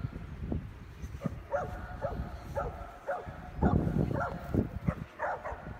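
Blue heeler giving a run of short, high yips, about two a second, while it digs in sand, over bursts of low rumbling noise.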